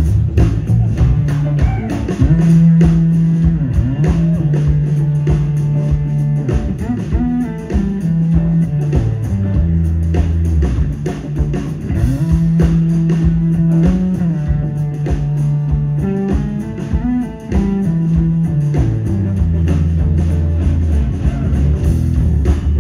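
Live rock band playing: two electric guitars over a drum kit, amplified through the stage PA.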